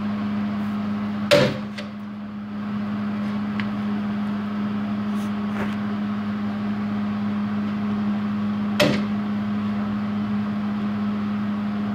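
A steady electrical hum runs throughout. Two sharp metallic snaps come over it, one about a second and a half in and another about seven seconds later, as a locking clamp on the repair section is set against the frame.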